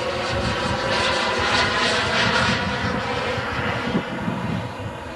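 Frank model jet turbine of a large-scale RC Lockheed U-2 running in flight, a steady whining rush that swells about two seconds in as the model passes, then eases off.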